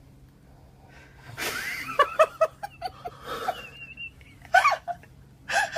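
A cup of water splashed onto a sleeping man's face, a short splash about a second and a half in, then bursts of laughter and startled gasping cries as he is woken.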